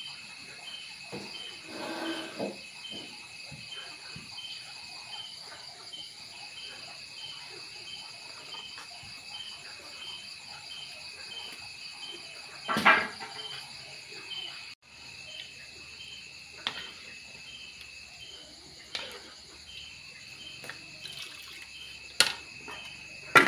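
Night insects chirping in a steady, high-pitched pulsing chorus of about three pulses a second. A few sharp knocks and clinks cut through it, the loudest about halfway through.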